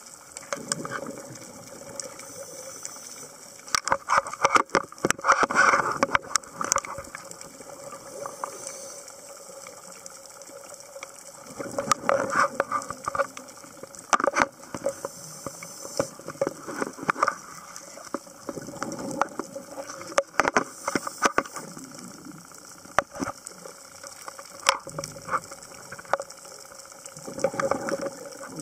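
Scuba diver's regulator exhaust, heard underwater: a gush of exhaled bubbles every few seconds, with sharp clicks and taps between.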